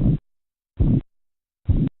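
Korotkoff sounds heard through a stethoscope over an artery under a deflating blood pressure cuff: a low thump with a short swish on each pulse beat, three beats about 0.8 s apart.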